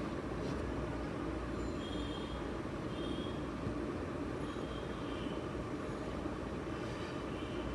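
Steady low rumbling background noise, with a few faint, short high chirps scattered through it.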